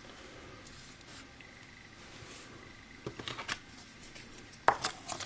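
A few small clicks and knocks, then a sharper cluster of clicks near the end: hard objects being handled, as when a shot bar of soap is picked up and examined.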